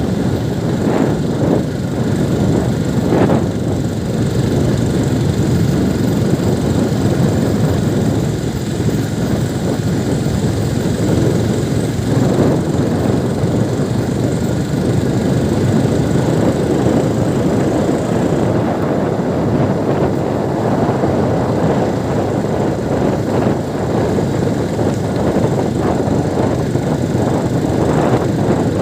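Steady rumble of a moving vehicle, engine and road noise with no breaks.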